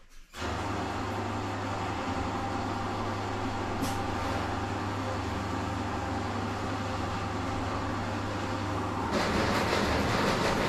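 Electric drain-cleaning machine starting up and running steadily, turning a 16 mm cleaning spiral fed into the blocked drain pipe. About nine seconds in the sound gets louder and harsher.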